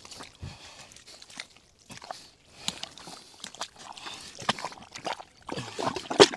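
Hands digging in wet mud and shallow water, with irregular squelches and splashes. The loudest come near the end.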